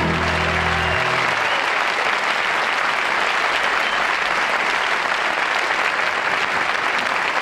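Studio audience applauding, steady and sustained, while the last held chord of the preceding music rings under it and stops about a second in.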